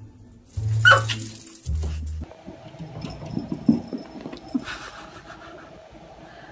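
Brief music with deep, steady bass notes, then a pet animal making a run of short whimpering sounds.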